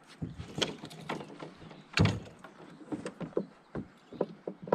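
Scattered knocks and clunks on a canoe's hull as gear and the catch are handled aboard, with one louder thump about two seconds in.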